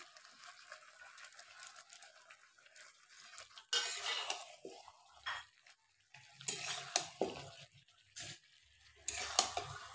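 A spatula stirring chicken curry in a metal kadai, scraping and clinking against the pan in short irregular bursts, with light sizzling from the hot pan.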